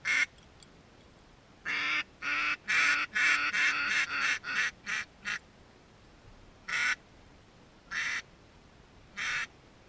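Duck quacking. One quack, then a fast descending-style run of about ten quacks over three and a half seconds, then three single quacks spaced about a second apart.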